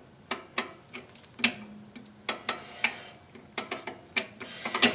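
2000 Honda Odyssey rear brake drum being turned by hand over freshly fitted, adjusted shoes. It gives an irregular string of sharp ticks and light scrapes as the shoes drag. The slight, uneven drag is the sign of shoes set just to contact the drum but not yet perfectly centered.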